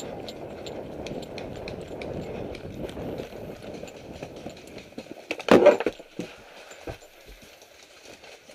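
Footsteps of a paintball player moving through dry leaves and brush in the woods, with rustling and short crunches, and one loud crash of brush about five and a half seconds in.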